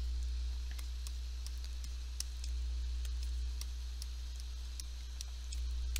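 Steady low electrical hum, with faint scattered ticks from drawing a shape on a computer.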